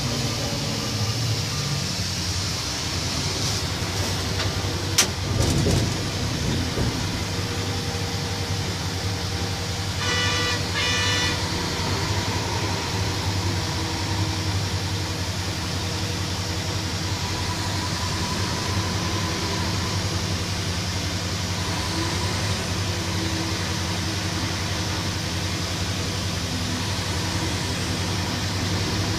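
Heavy mining dump truck's diesel engine running with a steady low drone, heard from on board. About five seconds in there is a single sharp knock, and around ten seconds a quick series of short beeps, like a horn or signal.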